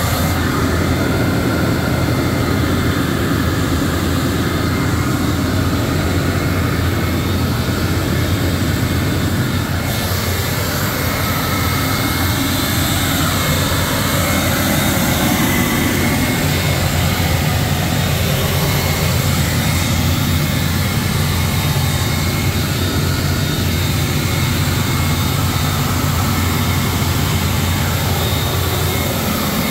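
Steady machinery running noise with a faint high whine, unbroken throughout, growing more hissy about ten seconds in.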